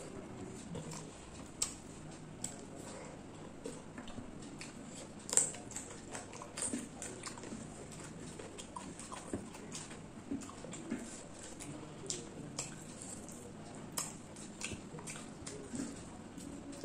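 Close-miked eating sounds of rice and chicken curry being eaten by hand: wet mouth smacks and chewing clicks with fingers squishing rice on a plate. They come as irregular sharp clicks, one louder about five seconds in.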